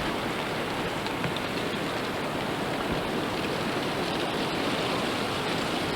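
Wind blowing steadily as a blizzard sets in, heard as an even, unbroken hiss.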